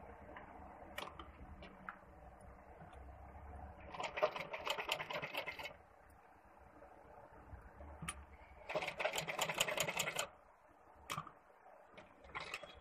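Sewing machine stitching through cloth in two short runs, each a rapid even clatter of needle strokes lasting a second or two, about four and nine seconds in. Light clicks and rustles of the fabric being handled come between the runs.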